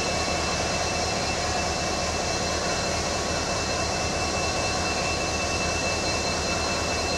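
WDG-4D diesel-electric locomotive, with its 16-cylinder two-stroke EMD 710 engine, running steadily at idle. Its low rumble is overlaid by a steady high whine, without horn blasts.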